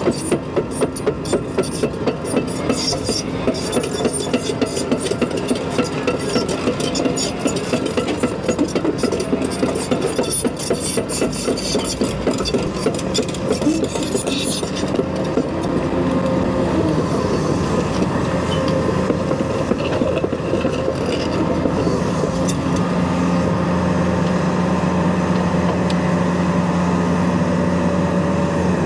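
Caterpillar 335 Next Gen excavator's diesel engine running steadily, with rapid clattering over it that stops about halfway through. Near the end the engine hum grows steadier and stronger.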